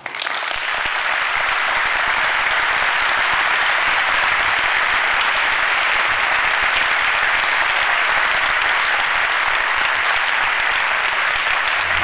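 Large audience applauding, a dense, steady clapping that starts all at once and builds within the first second.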